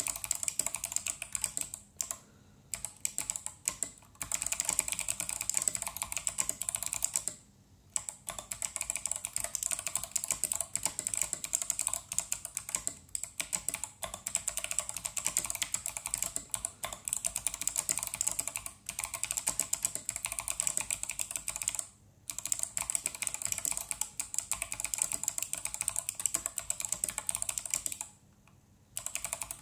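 Steady, fast typing on a mechanical keyboard with Kailh Box Navy clicky switches, SA profile keycaps and an aluminium plate: a dense run of thocky keystrokes with short pauses a few times.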